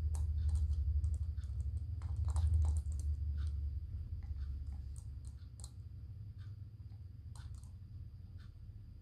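Small Morkie puppy gnawing at a plastic Happy Meal toy: irregular clicks and taps of teeth on plastic, quick and dense for about the first three seconds, then sparser. A low rumble runs under the first few seconds.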